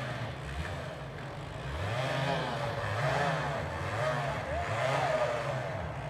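Off-road engine revving up and easing back about four times over a steady running note.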